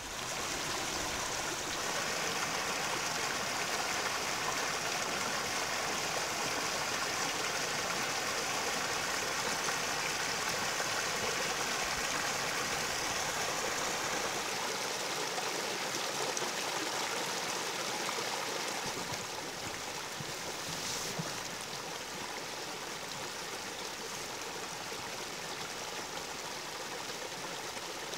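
Small mountain brook running, a steady rush of water that eases slightly about three quarters of the way through.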